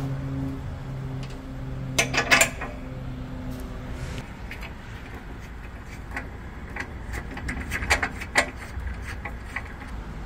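Sharp metallic clinks and clacks of hand tools and mounting hardware. A loud cluster comes about two seconds in and a run of lighter clicks follows later, over a low steady hum during the first few seconds.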